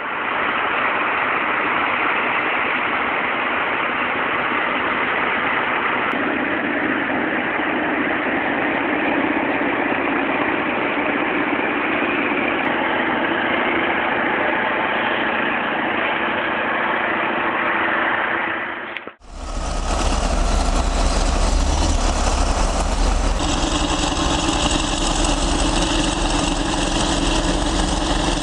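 Heavy vehicle engines running steadily, in two separate recordings: a thinner, noisier engine sound for most of the first part, then, after a sudden cut about two-thirds of the way in, a deeper engine sound with a strong low rumble.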